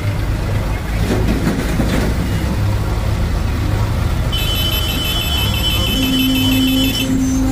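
HMT 3522 tractor's diesel engine running steadily as it pulls a fully loaded mud trolley. From about four seconds in, a high electronic beeping pattern sounds for about three seconds.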